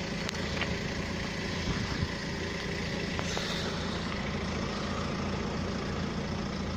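Engine of a Toyota Hiace van idling steadily, left running after a jump start to charge its flat battery.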